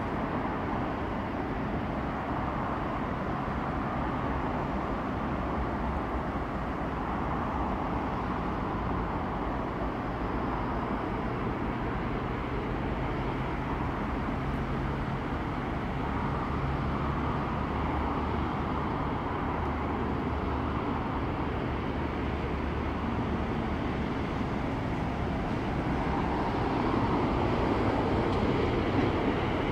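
Distant diesel locomotive engine running with a steady low hum over general rail-yard noise, growing slightly louder near the end as the train draws closer.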